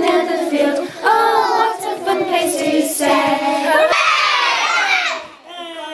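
A class of young children singing the last line of a song together, ending about four seconds in with a loud shouted "Hooray!" that rises and falls in pitch.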